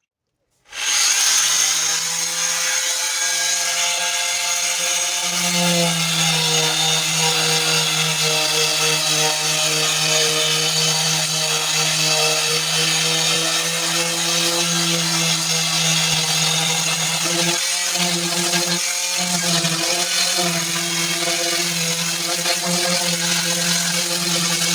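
Power sander running steadily against a car body panel, sanding it down for primer, with a steady hum. It starts within the first second and the hum dips out briefly twice about two-thirds of the way through.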